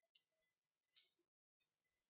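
Near silence with a few faint, soft ticks, then a fast shaker-like rattle starts near the end as background music comes in.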